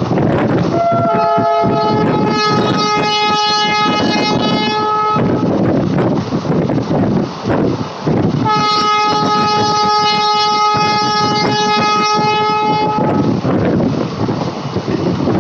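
Locomotive horn sounding two long blasts, each about four seconds, the first starting with a short step up in pitch. Between and under the blasts, the steady rumble and wind rush of the moving train.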